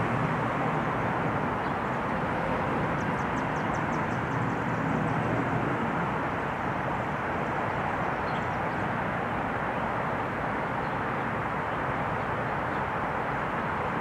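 Three diesel-electric freight locomotives, a GE AC44C6M leading, approaching at the head of an intermodal train: a steady engine rumble mixed with the rolling noise of the train.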